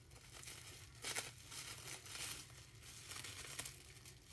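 Clear plastic bag crinkling in the hands, in faint irregular rustles that are a little louder about a second in and again near the end, as an item is pulled out of it.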